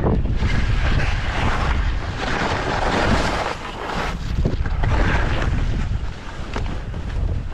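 Wind rumbling on the microphone while skis hiss through snow, swelling with each of a few turns.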